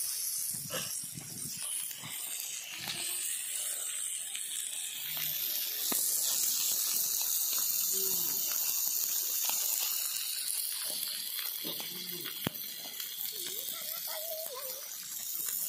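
Masala-coated fish pieces frying in shallow oil in a flat iron pan, a steady high sizzle with small pops and crackles.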